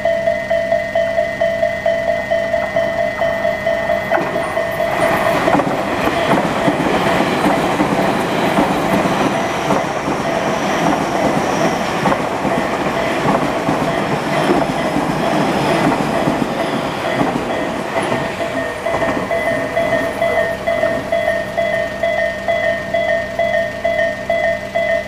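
Japanese railway level crossing bell of the Isesaki type, ringing loud with rapid repeated dings. From about five seconds in, a Tobu train passes over the crossing for roughly fourteen seconds with wheel clatter and rail clicks that partly cover the bell, then the bell rings on alone.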